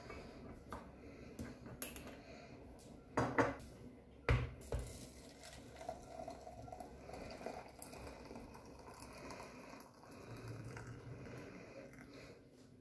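A few glass clinks and knocks, then hot water poured from an electric kettle into a glass teapot over dried mint leaves, a steady pour that stops near the end.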